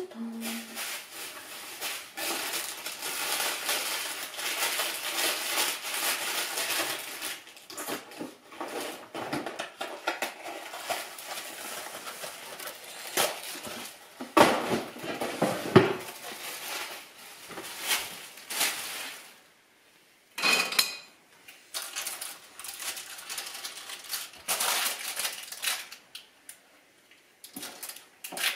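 Dishes and cutlery being handled at a kitchen counter: irregular clinks, knocks and scrapes with short pauses.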